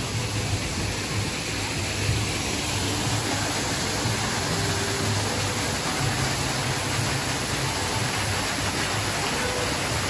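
Steady rush of a small waterfall spilling down rockwork, with faint background music.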